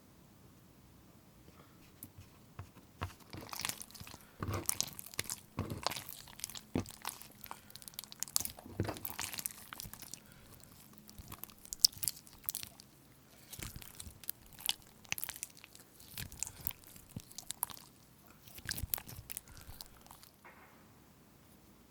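Slime being pressed and kneaded by hand, giving dense, irregular sharp crackles and pops. They start about two seconds in and stop shortly before the end.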